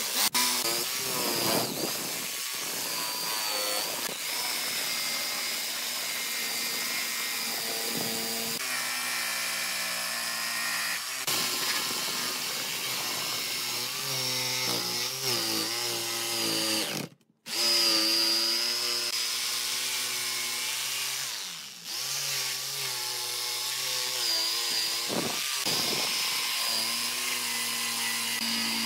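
Electric power tools running on wood, the motor pitch dipping and recovering as they work under load. The sound cuts off abruptly for a moment a little past halfway, then resumes.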